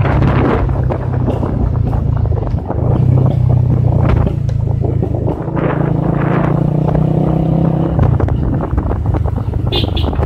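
Motorcycle engine running under way, its note stepping up and down a few times as the throttle changes, with wind buffeting the microphone.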